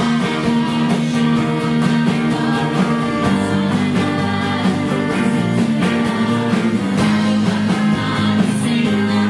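Pop song with a woman singing over guitar and a steady beat; the bass fills in about three seconds in.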